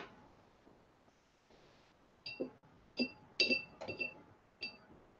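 A paintbrush clinking against a glass jar about six times in quick light taps, each with a short high glassy ring.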